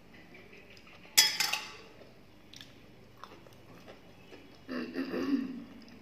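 A steel bowl strikes a steel plate about a second in with a sharp metallic clink that rings briefly. A shorter, lower wet eating sound follows near the end as the watery fermented rice is worked by hand.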